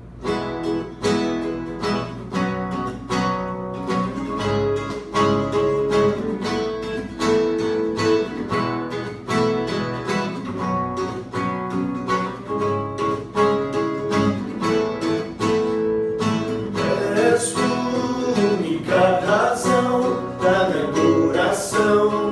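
Instrumental opening of a worship song: an acoustic guitar strummed in a steady rhythm, with a sung melody coming in about seventeen seconds in.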